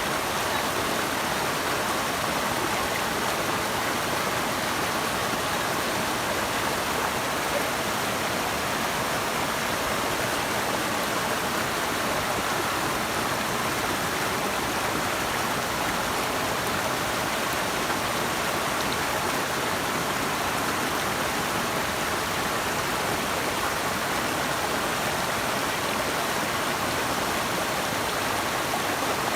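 Running water rushing steadily, an even unbroken noise with no changes.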